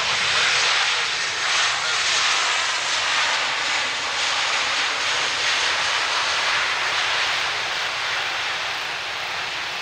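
Boeing 737 MAX 8's CFM LEAP-1B jet engines in reverse thrust on the landing rollout: a loud, steady rushing jet noise that slowly eases off toward the end.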